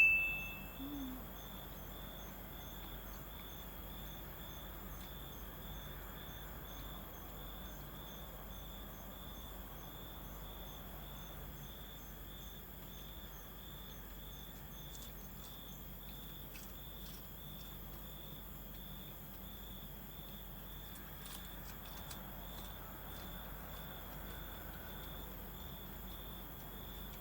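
Crickets chirping steadily in an evenly repeating pattern.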